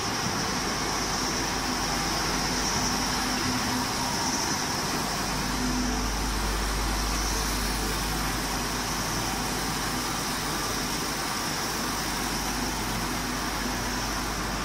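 Steady machinery noise of a running waste-oil vacuum distillation plant: an even mechanical hum with a high hiss over it, the low hum growing stronger about five seconds in.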